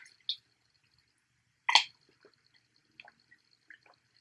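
Close-up wet mouth sounds of a person eating snow crab legs: a few short smacks and slurps, the loudest about two seconds in, with fainter clicks after it.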